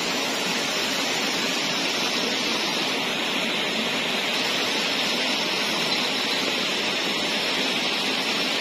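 Steady rush of flowing water from a stream swollen by days of rain, an even hiss with no break or change.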